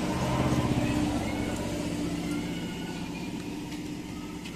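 A motor vehicle's engine running as it passes, swelling about a second in and then slowly fading, over the steady sizzle of banana slices frying in oil in a wok.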